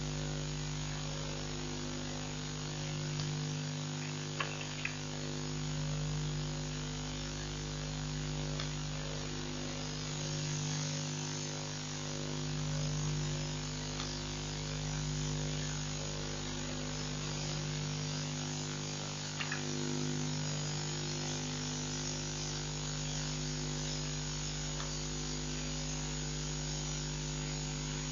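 A steady electrical hum with a hiss over it, with a couple of faint clicks about four seconds in and again near twenty seconds.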